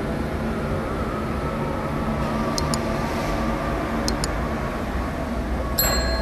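Two quick double mouse clicks and then a bell ding, the sound effects of a subscribe-and-notification-bell animation, over a steady low rumble and hum of an underground car park.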